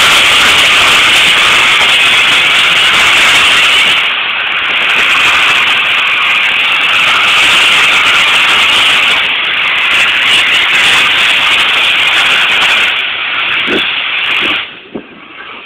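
A1 Pacific steam locomotive No. 60163 Tornado hissing loudly, a steady rush of escaping steam as it pulls out; the hiss cuts off sharply near the end.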